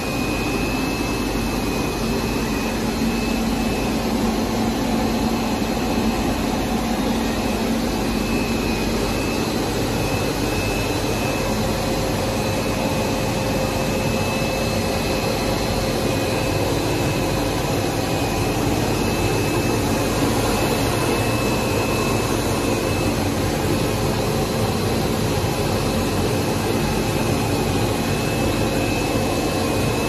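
Plastic zipper extrusion line running: a steady machine hum and rush with a faint high whine.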